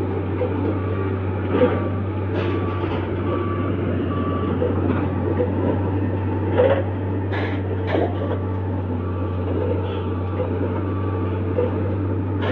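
Harsco track-laying machine at work: a steady diesel engine drone with a repeating high warning beep and occasional metallic clanks.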